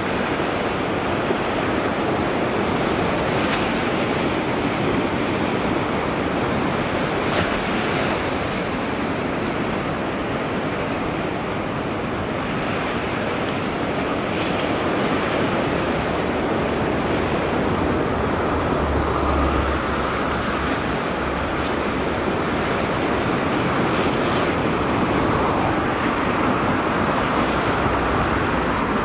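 Small waves washing in on the shore, a steady hiss of surf that swells every few seconds, with a low rumble of wind on the microphone partway through.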